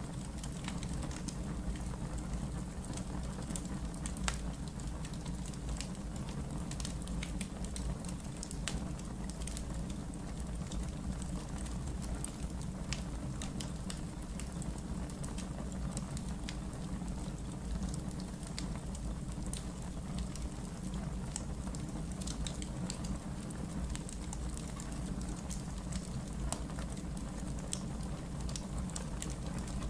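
Wood logs burning in a fireplace, crackling with frequent sharp pops over a steady low rumble of the flames.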